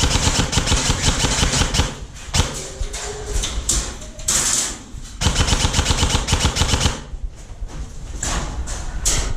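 Airsoft gun firing in rapid full-auto bursts, a fast clatter of shots. One burst runs until about two seconds in and another from about five to seven seconds, with scattered single shots between and near the end.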